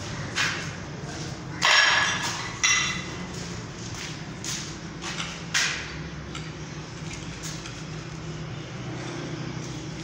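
A few scattered knocks over a steady low hum; the loudest, about two seconds in, rings briefly.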